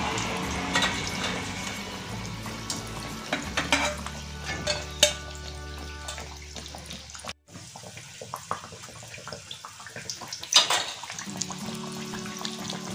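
Batter-coated potato vadas deep-frying in hot oil: the oil sizzles steadily with frequent crackles and pops.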